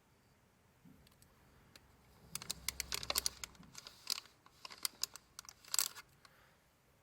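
Paper and card being handled: a run of light clicks and crinkling rustles in two or three clusters through the middle, the loudest just before the end.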